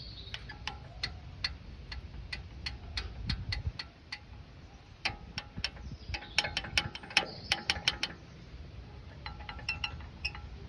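Metallic clicking and rattling with a short, bell-like ring, in runs of clicks that come steadily at first, then thick and fast, then sparse: loose rear brake pads knocking in the caliper.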